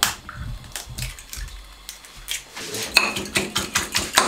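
A sharp knock at the start, a few light taps, then a spiral spring whisk beating eggs in a ceramic bowl from about two and a half seconds in, its metal coil clinking against the bowl about three times a second.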